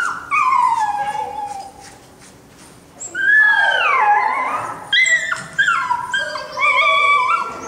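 A dog yelping and howling in high-pitched calls that slide downward in pitch. There is a long call at the start, another about three seconds in, then a run of shorter repeated yelps.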